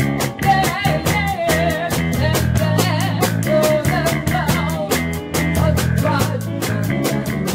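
Live rock band playing a 1960s blues-rock cover: a woman sings into a microphone over electric guitar and bass, with a steady beat.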